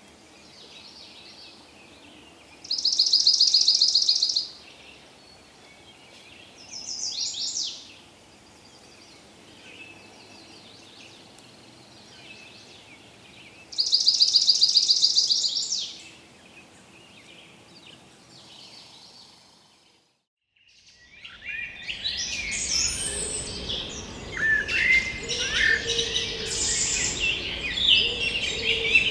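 Forest ambience with birdsong: a bird's loud, rapid high trill sounds twice, about eleven seconds apart, with a shorter call between, over a faint background. After a brief silence about twenty seconds in, a busier mix of many birds chirping and calling sets in over a fuller background.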